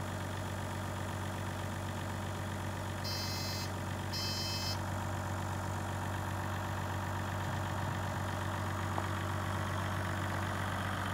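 Hino Liesse II minibus's 1HD-FTE straight-six turbodiesel idling steadily. Two short electronic beeps sound about three and four seconds in, as the automatic passenger door opens.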